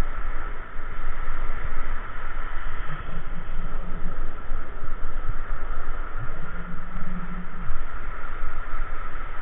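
Wind buffeting the microphone over surf breaking and washing around the angler's legs. A low hum comes and goes three times.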